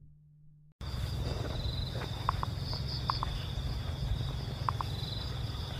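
A faint steady hum, then from about a second in, insects trilling steadily in two high tones over a low rumble, with a few short high chirps.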